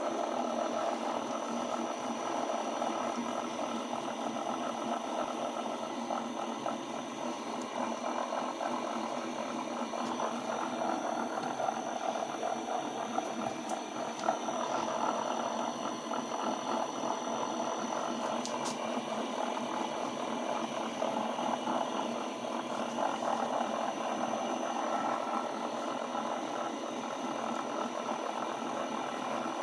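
1D601 benchtop lathe running steadily: a dense, even mechanical hum with several steady whining tones and a couple of faint clicks midway.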